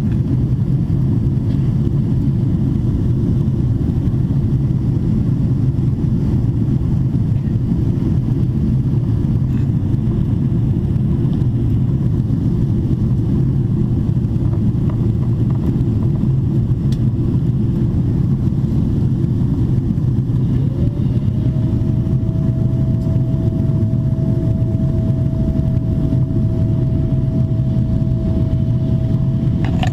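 Steady cabin drone of a Boeing 777-300ER in descent, heard from a window seat over the wing: airflow and engine noise, strongest low down. About twenty seconds in, a thin steady whine slides up and then holds.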